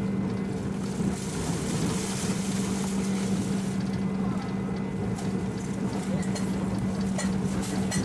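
Cabin running noise of a JNR 781-series electric multiple unit at speed: a steady low hum over a continuous rumble, with a few short clicks near the end.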